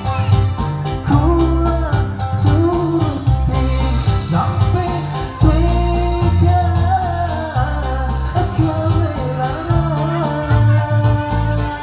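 A man singing a melody over an accompaniment with bass and a steady beat.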